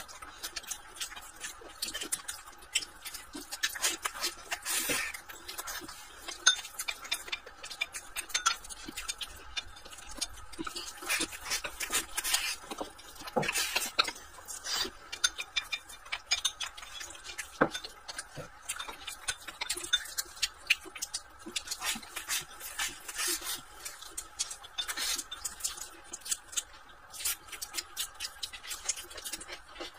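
Close-up eating sounds: wooden chopsticks clicking and scraping against a ceramic rice bowl, mixed with chewing and lip smacks, in many small irregular clicks.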